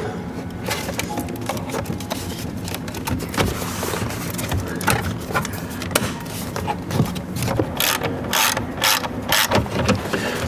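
Hand ratchet wrench clicking in irregular strokes while fasteners are tightened, with a quicker run of strokes near the end.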